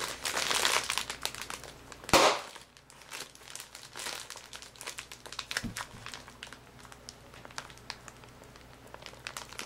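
Large Polyair inflatable air-pillow packing film crinkling and crackling as it is squeezed hard by hand, with one louder burst about two seconds in.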